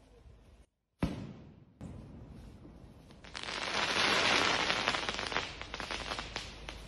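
Aerial firework: a sharp bang about a second in, then from about three seconds a dense crackling of many small pops as the burst's sparks fall.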